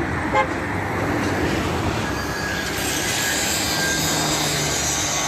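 Sheet-metal roll-forming machine running, profiled roofing sheet feeding through its rollers with a steady mechanical rumble and hum. A metallic scraping hiss grows louder about three seconds in.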